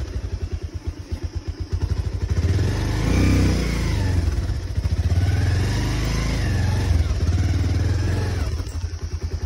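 An engine running with a steady low putter, growing louder and fuller for several seconds in the middle.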